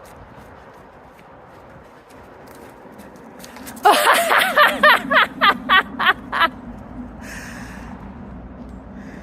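A person laughing hard in a quick burst of about eight or nine loud 'ha's, starting a little under four seconds in and lasting under three seconds.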